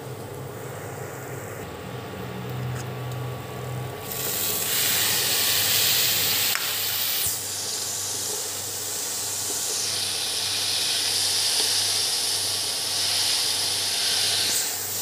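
Chopped spinach sizzling in hot oil in a kadhai: a quieter frying sizzle at first, then a loud hiss about four seconds in as the wet leaves hit the oil, and again in the second half while they are stirred with a wooden spatula.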